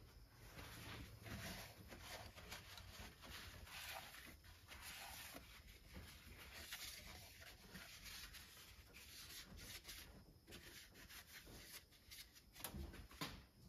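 Faint rubbing and scuffing of a rag wiping around the deck and bolt holes of a Land Rover 2.25 petrol engine block, with a few light knocks near the end.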